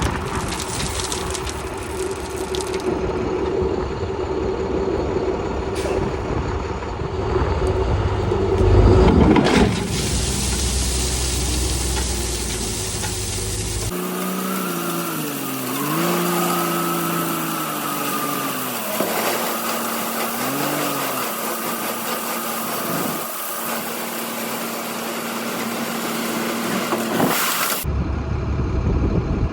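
Diesel engine of heavy equipment running under work while asphalt millings are spread. About halfway through the sound changes abruptly, and the engine's pitch then drops and rises several times as it is worked.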